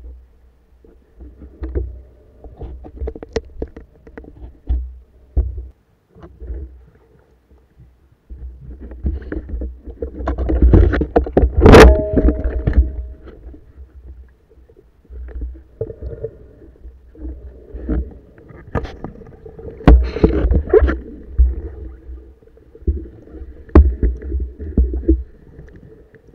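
Muffled water sloshing and splashing with irregular knocks and bumps, picked up by an underwater camera moving through submerged reeds near the surface. A sharp knock about twelve seconds in is the loudest moment.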